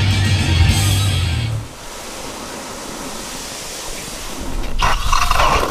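Background guitar music that stops abruptly about a second and a half in, leaving a quieter steady hiss, with a louder rush of noise near the end.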